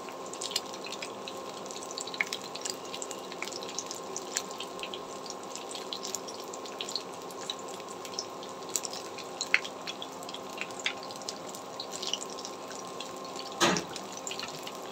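Cauliflower fritters frying in hot oil in a nonstick pan: steady sizzling with frequent small crackles and pops, over a faint steady hum. One brief louder knock near the end.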